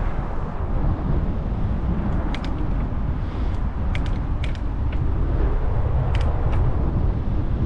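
Steady low rumble of wind on the microphone and tyres on the road while riding a bicycle, with a few sharp clicks in pairs about two, four and six seconds in.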